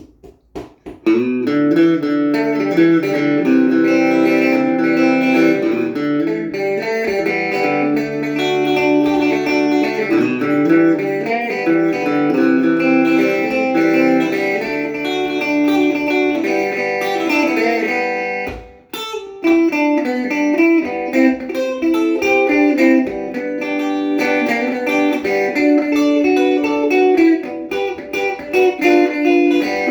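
Electric guitar played clean through a small battery-powered Blackstar practice amp: a country lick of picked single notes and double stops with delay. It starts about a second in and stops briefly for a moment past the middle before carrying on.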